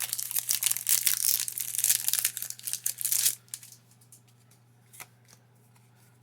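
Foil wrapper of a Pokémon trading card booster pack being torn open and crinkled, a dense crackle that stops sharply a little after three seconds in, followed by a few faint ticks as the cards are handled.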